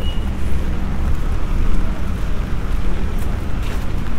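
City street traffic: a steady low engine rumble from a bus and traffic close by, with tyres hissing on the wet road. A high steady beep from a pedestrian crossing signal stops just after the start.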